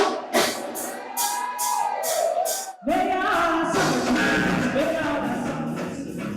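Live band music with a singer, driven by percussion with regular sharp strokes. The sound drops out briefly just before the middle, then the full band and voice come back in.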